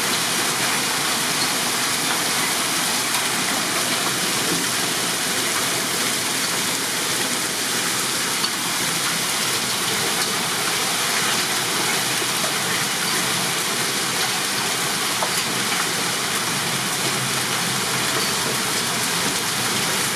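Heavy rain from a hailstorm falling steadily.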